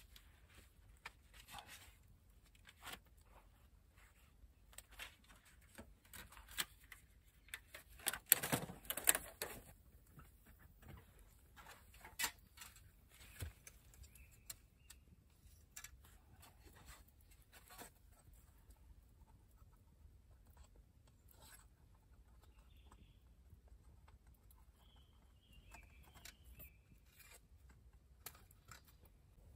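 Small wood fire crackling with scattered pops, and a louder rustle and clatter about eight seconds in as a folding windscreen is opened out and set around the fire.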